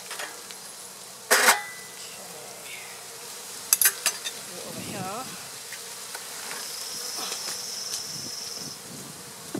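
Honey bees buzzing as they fly around the front of their hive, one buzz swelling and falling about five seconds in. A short loud clatter about a second and a half in and a few sharp clicks around four seconds.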